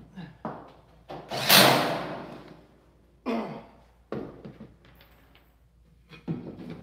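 Hammer blows on the steel stud and bottom track of a metal door frame. The loudest comes about a second and a half in and rings on as it fades, followed by shorter knocks and clanks of metal.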